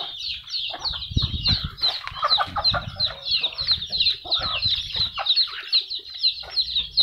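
A flock of free-range chickens calling at feeding time: chicks peep rapidly and without pause while hens cluck in between. Low rumbles come and go underneath.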